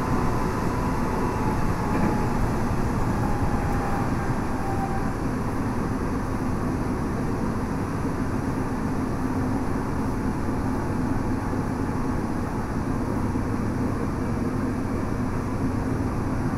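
Steady running noise inside a Tokyo Metro 7000 series electric train with Hitachi IGBT inverter drive, 165 kW motors and FS-515 bogies: an even rumble of wheels on rail. A faint motor tone near the start sinks slightly in pitch.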